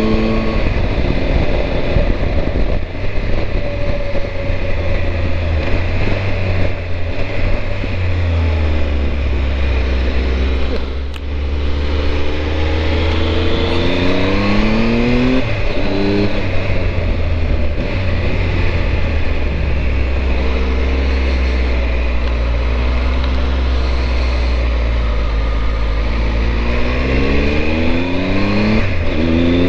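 Triumph Tiger 1200 motorcycle's three-cylinder engine under way, its pitch rising several times as it accelerates, with a short drop about eleven seconds in, over steady wind and road noise.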